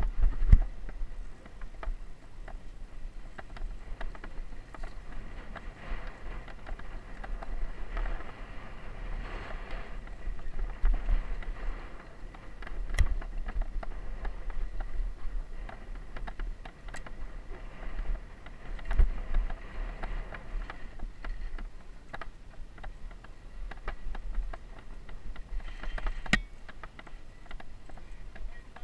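Mountain bike riding downhill over grass and a rough dirt trail: steady tyre and wind noise with frequent rattles and knocks from the bike as it goes over bumps, a few sharper knocks standing out.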